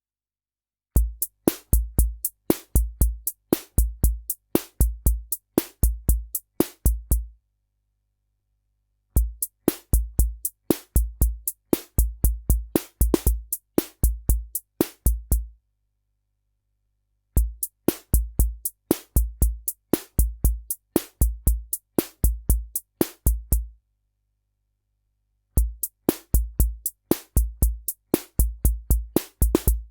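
Korg SR-120 Mini Pops analog drum machine playing its Rock rhythm in runs of about six seconds, with pauses of about two seconds between them. Low bass-drum thumps sit under sharp, clicky hi-hat and snare hits.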